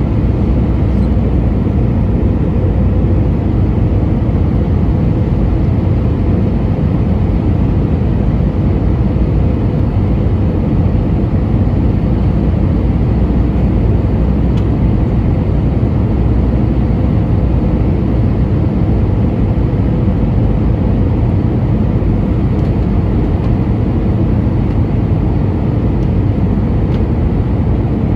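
Steady cabin noise inside an Airbus A320-232 descending on approach, heard from a window seat over the wing: a constant low rumble of airflow and its IAE V2527 turbofan engines, with no change in pitch or level.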